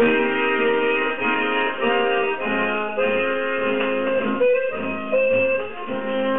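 Accordion music played from a 78 rpm shellac record through the loudspeaker of a 1937 HMV model 721 six-valve radiogram. It starts suddenly with held chords.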